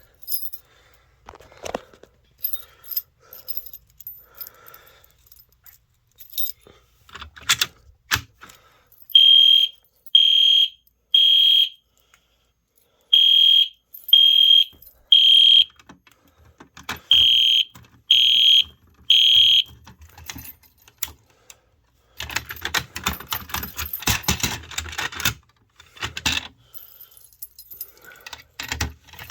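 EST Genesis G1 horn strobe sounding the temporal-3 evacuation pattern: three short, high-pitched beeps and a pause, repeated three times, then stopping. Scattered clicks of handling come before it, and a few seconds of rattling after it.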